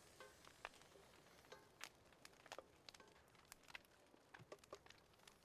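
Very faint, irregular crackling and ticking from a steel pot of rice, dal and peas cooking over a wood fire.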